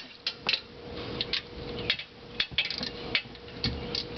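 Irregular light clicks and rustles of hands handling things under the car, over a faint steady hum.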